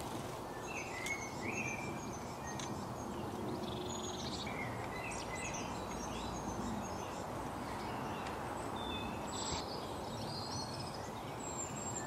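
Small songbirds chirping and calling, with short high notes scattered throughout, over steady outdoor background noise.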